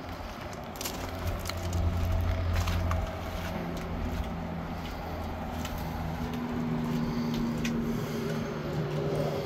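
A vehicle engine running steadily, under a low wind rumble on the microphone, with a few light clicks and taps.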